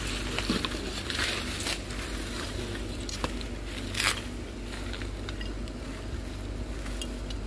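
Plastic bags and dry litter rustling and crackling as they are pulled aside by hand, with a loud crunch about four seconds in.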